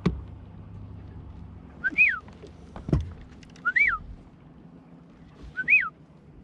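Three short whistled notes, each rising then falling in pitch, about two seconds apart, with a dull knock at the start and another about three seconds in.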